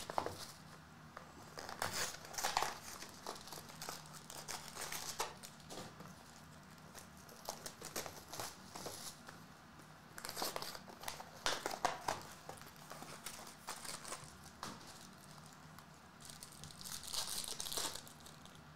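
Foil wrappers of hockey trading-card packs crinkling and tearing in irregular bursts as the packs are handled and ripped open.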